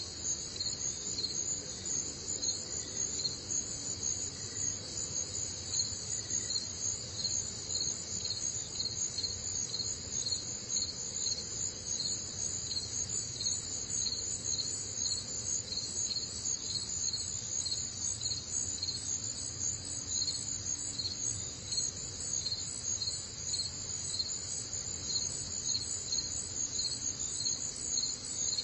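Steady high-pitched insect chorus, like crickets, at two pitches with a regular pulsing a few times a second.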